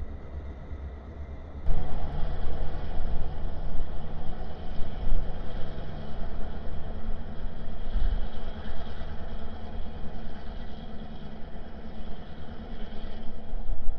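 Terminal Railroad GP38-3 diesel-electric locomotives with EMD two-stroke engines, running steadily as they move slowly past. The engine sound is a low rumble, and it jumps louder about two seconds in.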